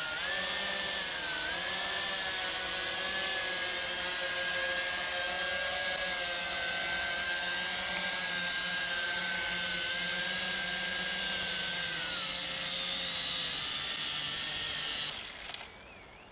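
Small quadcopter drone's propellers whining steadily in a hover, the pitch sagging as it comes down to land; the motors wind down and stop about fifteen seconds in. It is being landed on what the pilot takes for a low-battery warning.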